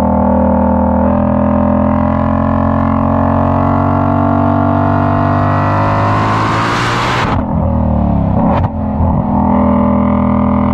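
2020 Shelby GT500's supercharged 5.2-litre V8 under hard track driving. The engine note climbs steadily for several seconds, then breaks off sharply about seven seconds in, and again about a second later, as the gear changes.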